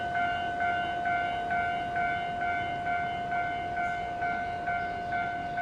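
Electronic railway warning signal sounding: a steady tone under a higher two-note pattern that alternates about twice a second.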